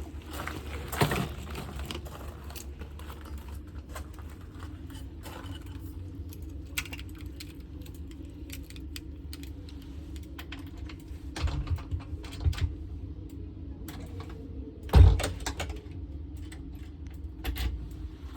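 Scattered small clicks, rattles and knocks of belongings being handled, over a steady low hum, with the loudest thump about fifteen seconds in.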